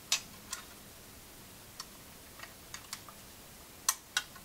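Light clicks and taps from handling a Kodak Duraflex camera and a metal 620 film spool at its film chamber, irregularly spaced, with a sharper click just after the start and two near the end.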